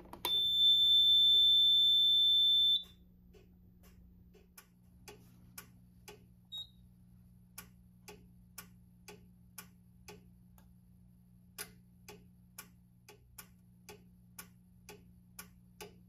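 A fire alarm panel's built-in piezo sounder gives one steady high beep for about two and a half seconds as a panel key is pressed. After it come quiet, even clicks about twice a second over a low hum.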